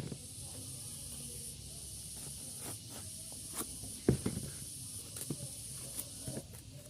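A steady high hiss, with a few light knocks and clicks scattered through it, the sharpest about four seconds in.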